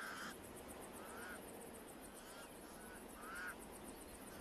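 Pied crows calling: a series of about five short, harsh calls, the one about three and a half seconds in the loudest, over a rapid, even high-pitched pulsing.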